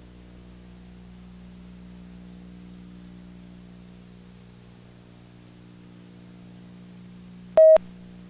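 Steady electrical hum and hiss, with a short, loud electronic beep near the end.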